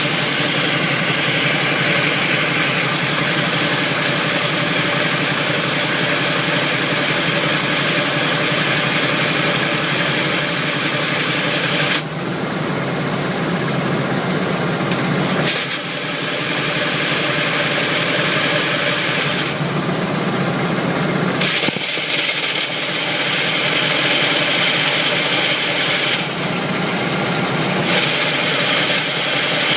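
Chevrolet Camaro's engine running, its sound changing abruptly several times, about 12, 16, 20 and 26 seconds in. The owner is recording this car for a grinding noise in gear at low speed, which he places at the flywheel or torque converter.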